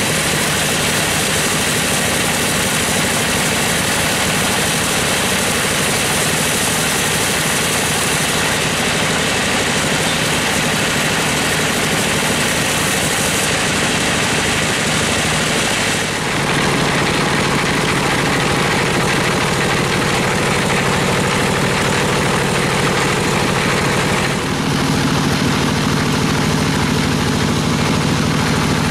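Band sawmill running, its blade cutting through gmelina timber: a steady loud noise with a high hiss over a machine hum. The sound changes abruptly about halfway through and again near the end, with the low hum growing stronger.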